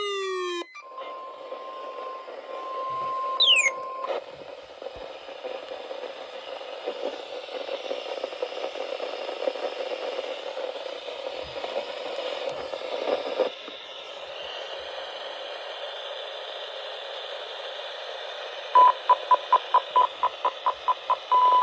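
Weather radio receivers: a falling siren sweep ends just after the start, then a steady alert tone sounds for about three seconds before giving way to radio static hiss. Near the end a rapid run of beeps, about five a second, runs into a long steady alert tone.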